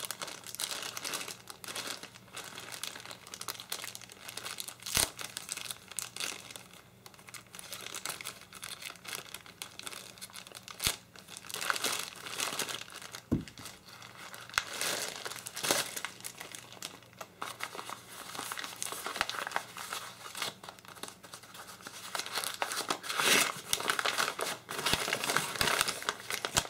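A sealed plastic bag and the oil paper wrapped inside it being opened and unwrapped by hand: continuous crinkling and rustling, with a few sharp clicks.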